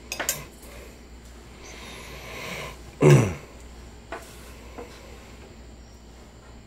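A person coughs once, a short sound falling in pitch about three seconds in, after a breathy intake. A few faint light clicks come as hot dogs are cut with a small knife over a bowl.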